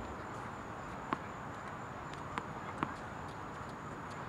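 A few scattered, sharp tennis-ball pops, three in all, over a steady background hiss.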